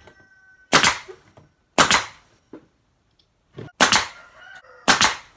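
Finishing nailer firing four nails into a wooden frame, four sharp shots spaced about a second or two apart.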